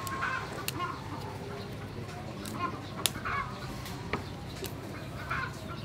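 Chickens clucking in short calls, with a few sharp snaps of vegetable stems being broken by hand.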